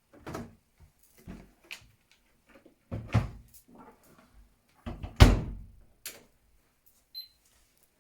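A run of knocks and clunks from the door of a Miele W1 front-loading washing machine being handled, with the machine at rest. The loudest is a heavy thud about five seconds in, and a brief high blip follows near the end.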